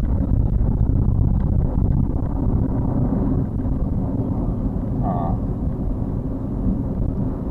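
Steady low rumble of a vehicle's tyres and engine heard from inside the cab while driving along a paved road, with a brief vocal sound about five seconds in.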